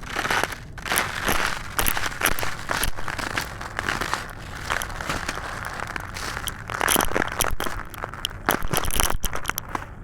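Black concrete crumbling and being crushed: a dense run of crackling and crunching with many sharp snaps.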